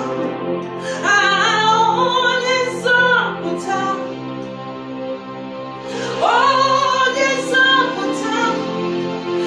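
A woman singing a slow worship song over sustained instrumental accompaniment, her voice dropping away for a couple of seconds near the middle before coming back in.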